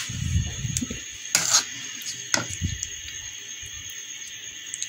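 A few light clicks and taps of a metal spoon against a ceramic bowl as marinated chicken pieces are scooped out and set down on a dish of flour.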